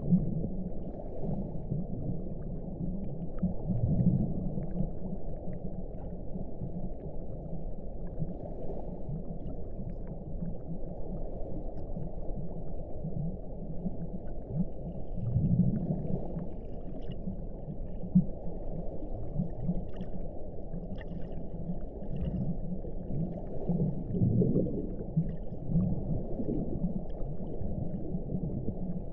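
Muffled underwater ambience: a steady low rumbling wash with slow, swelling groans every several seconds and no high sounds at all.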